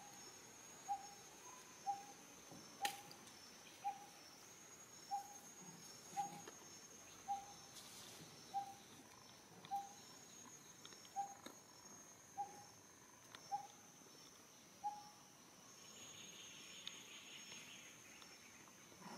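A bird's short, clear note repeated a little under once a second, stopping about three-quarters of the way through, over a steady high-pitched insect drone.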